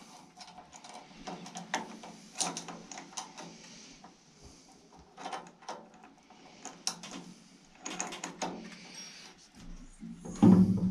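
Steel chain of a chain wrench clinking and rattling against a metal drive sprocket as it is wrapped around and set up, in a run of irregular clicks, with one louder knock near the end.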